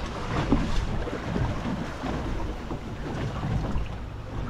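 Wind buffeting the microphone on an open boat, over the wash of choppy sea water.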